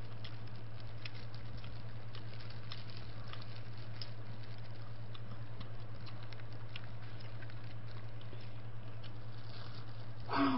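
Faint scattered crackles and rustles of plastic-gloved hands pulling apart fried chicken, over a steady low electrical hum. A brief voice sound comes near the end.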